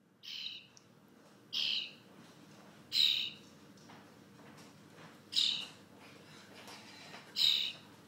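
Young starling giving five short, harsh calls, each about half a second long, spaced a second or two apart while it feeds.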